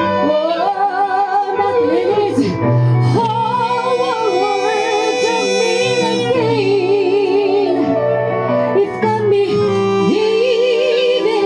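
Female lead vocalist singing a soul ballad with vibrato and melismatic runs, over a live band with tenor and alto saxophones, electric guitar and keyboard.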